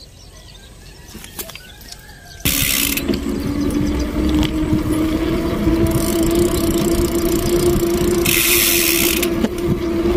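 Motorcycle engine running at a steady pitch with wind rush, coming in abruptly about two and a half seconds in after a quiet stretch; two short bursts of hiss near the start and near the end.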